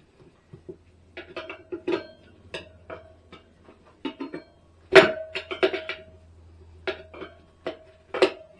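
Metal tyre irons clanking against a motorcycle wheel rim while levering the tyre bead on. There are a dozen or so sharp, irregular knocks, each with a short metallic ring, and the loudest comes about five seconds in.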